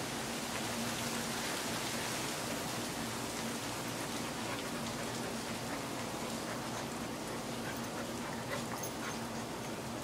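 Steady hiss with a faint low hum, and a few faint clicks and scuffles from an Old English Sheepdog and a chocolate Labrador Retriever play-wrestling on carpet.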